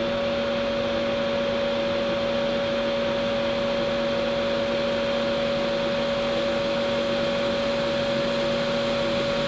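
Hot air rework station's blower running steadily at low airflow: an even airy hiss with a constant two-note hum.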